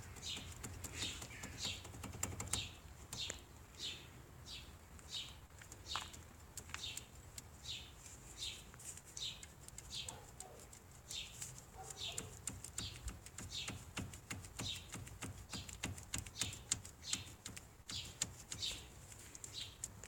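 Irregular light knocks and clicks from the front of a Chevrolet Aveo T300 rolling slowly over a rough road, over a low rumble. The knocking comes from a front brake caliper bracket that has play.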